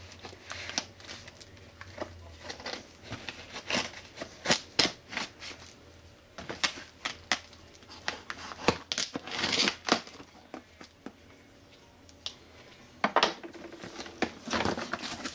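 A small blade slitting the clear packing tape on a cardboard box, a run of sharp scrapes and clicks, then tape being peeled and the cardboard flaps pulled open with a rustle near the end.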